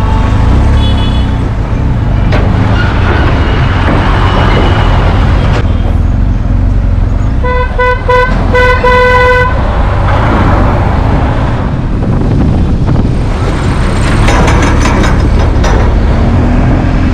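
Steady low rumble of a BMW R 1250 GS being ridden slowly over a rough, muddy road. About seven and a half seconds in, a vehicle horn toots twice briefly and then once longer.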